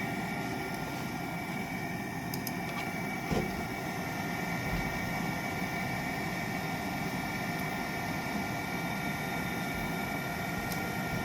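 Trane 90% gas furnace running: a steady machine hum with a thin, steady high whine over it. A single sharp click about three seconds in.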